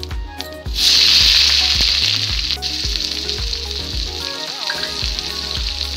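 Sliced onions hitting hot mustard oil in a kadhai. The oil bursts into a loud sizzle less than a second in and keeps frying steadily. Soft background music with a regular low beat plays underneath.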